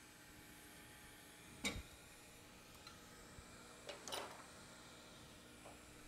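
Workbench handling noises over near silence: one sharp knock about one and a half seconds in, a couple of faint ticks, then a short cluster of knocks around four seconds in, as the hot air rework handle is lifted from its stand.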